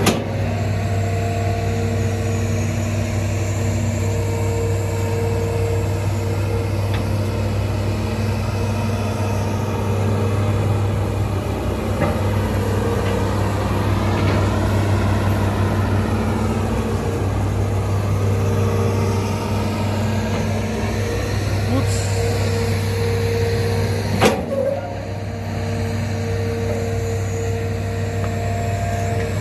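Hitachi ZX210LC-5G excavator's diesel engine and hydraulics running steadily under load as it digs and swings, with a low hum and a few sharp knocks, the loudest near the end.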